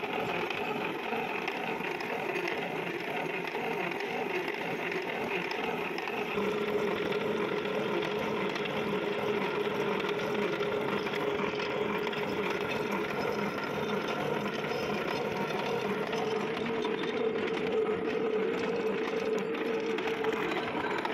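Lathe with a milling attachment running, its toothed disc cutter cutting the helical thread of a worm shaft under coolant: a steady machining noise with a held mid-pitched tone that grows stronger about six seconds in.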